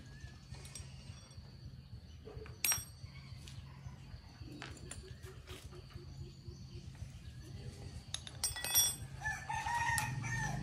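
Sharp metal clinks of wrenches and bicycle parts as an old bicycle's handlebar and front fork are taken apart, loudest in a quick cluster near the end. A rooster crows right after that cluster, over a steady low hum.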